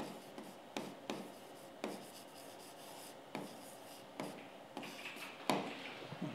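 Stylus tapping and scratching on an interactive touchscreen board as a word is handwritten: a string of short, irregular taps and strokes, the loudest about five and a half seconds in.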